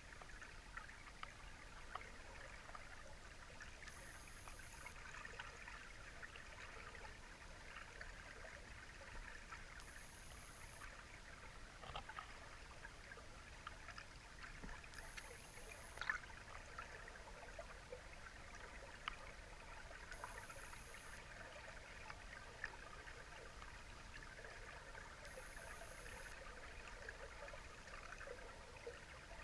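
Faint underwater ambience heard through a GoPro's waterproof housing: a low water hiss with scattered small crackles and clicks, one sharper click about halfway through. A high thin tone about a second long repeats roughly every five seconds.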